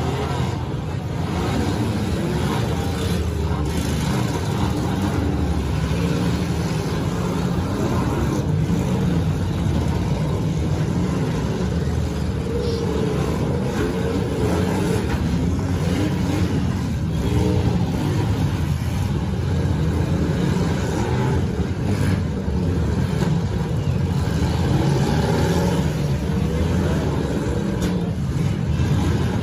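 Several demolition derby cars' engines running and revving at once, their pitch rising and falling as they ram each other, with occasional sharp bangs of metal-on-metal collisions.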